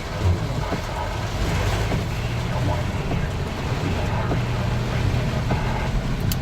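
Steady engine and tyre noise inside a moving car's cabin.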